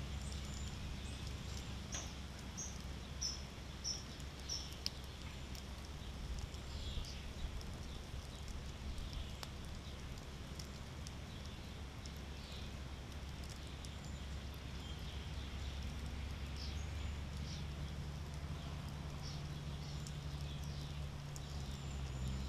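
Outdoor ambience with a steady low rumble; a small bird calls a run of about six short, high notes a few seconds in, with more scattered chirps and faint ticks later.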